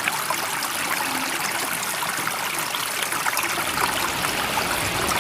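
Steady rush of running water with fine trickling and splashing detail; the sound fills out lower down from about four seconds in.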